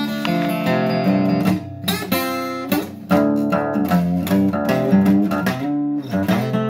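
Acoustic guitar strummed, a chord pattern played on its own between sung lines.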